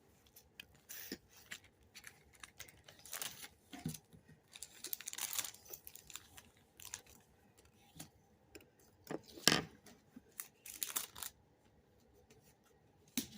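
Packaging rustling, crinkling and tearing in irregular bursts as items are unwrapped by hand, with a sharp click about nine and a half seconds in.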